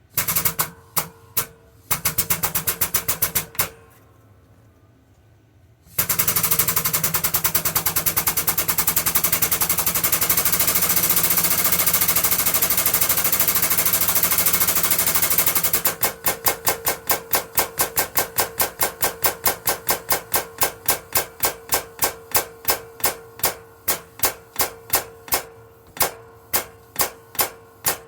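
Air-powered pump of a shop press stroking in rapid chattering bursts while pressing bushes on a lathe gear. A long continuous rattle gives way, about two-thirds of the way through, to separate strokes that slow steadily as the press builds pressure.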